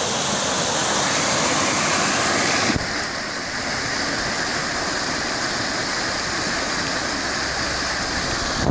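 Small creek in flood after heavy rain, rushing steadily through and out of culvert pipes. A brief knock about three seconds in, after which the rush is a little quieter.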